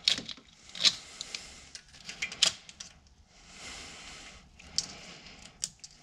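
Old plastic wiring loom, brittle and deteriorating, being pulled off a Porsche Cayenne's engine wiring harness by hand: irregular sharp clicks and crackles, with a short stretch of rustling about halfway through.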